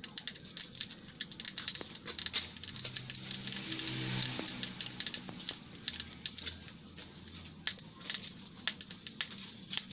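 Small metal parts of a carburetor being handled and worked by hand: irregular light metallic clicks and rattles throughout, with a soft hiss about four seconds in.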